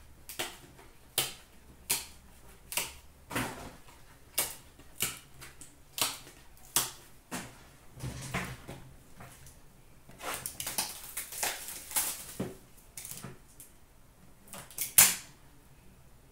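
Trading cards and card boxes being handled: a run of sharp clicks, about one a second, then a stretch of dense crackling in the middle and one loud snap near the end.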